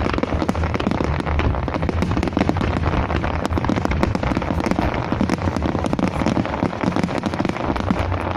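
Fireworks crackling densely: a continuous mass of small sharp pops that merge into a steady rain-like hiss over a low rumble.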